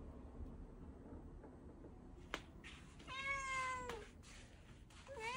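Domestic cat meowing: one drawn-out meow lasting about a second, with a second meow starting near the end. A brief click comes just before the first meow.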